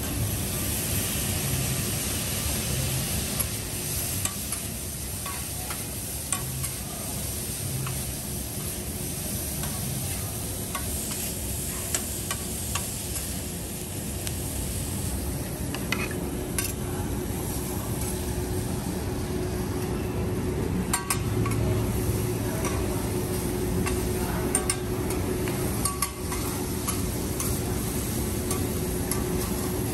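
Steak, lobster and vegetables sizzling on a steel teppanyaki griddle, with metal spatulas scraping and tapping the hot plate in scattered sharp clicks. A steady hum sits underneath.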